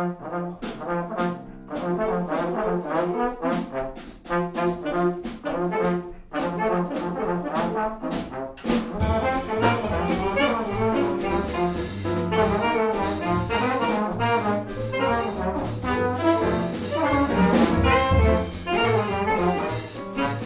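Live small-group jazz with piano, double bass and drums. A light, steady beat of sharp strikes about twice a second under held notes opens it, and about nine seconds in the band fills out with a heavier low end.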